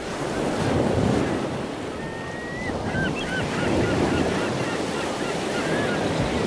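Ocean waves and wind: a steady rushing wash of surf. Faint short chirping calls are scattered over it from about two seconds in.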